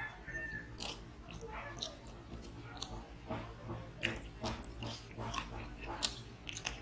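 A man chewing and biting a mouthful of rice and chicken curry, with irregular wet clicks and smacks, the sharpest about four and six seconds in.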